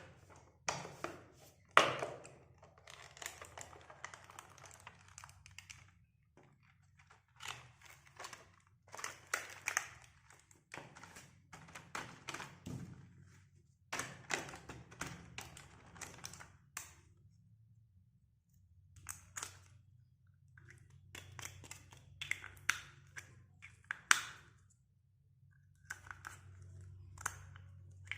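Hello Kitty toy doctor set being unboxed and handled: irregular taps, clicks and knocks of small plastic pieces, with stretches of packaging rustling in between.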